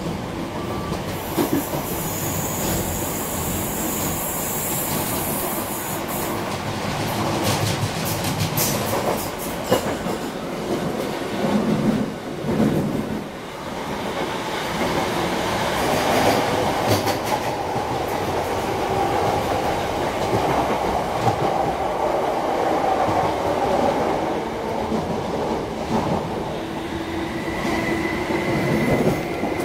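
Class 319 electric multiple unit heard from inside the passenger saloon while running at speed: a steady rumble of wheels on rail with scattered rail-joint clicks. A steady whine comes in near the end.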